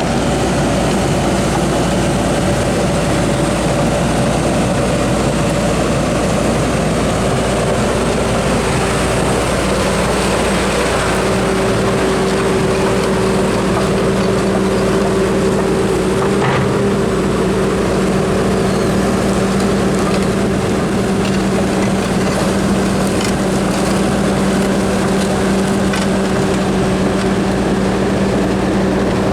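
Cat 320DL excavator's C6.4 ACERT diesel engine running steadily. A pitched hum strengthens about ten seconds in, and there is a brief click a few seconds later.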